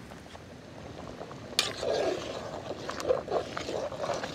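A metal spoon stirring rice in water in an aluminium pot: a sharp clink about a second and a half in, then repeated wet sloshing strokes.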